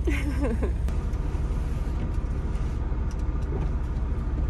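Steady low rumble of a semi truck's diesel engine running, with a short wavering pitched sound at the very start.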